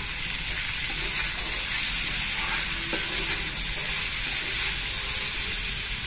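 Diced potatoes sizzling in hot mustard oil in a metal kadai, stirred with a perforated metal spoon that scrapes and clinks against the pan a couple of times.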